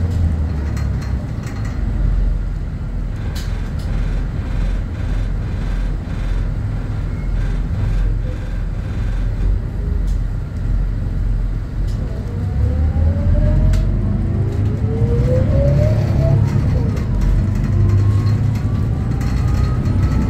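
Interior of a Scania K94UB city bus on the move: a steady low engine and road rumble with a couple of sharp rattling clicks. From about twelve seconds in, a whine climbs in pitch as the bus accelerates.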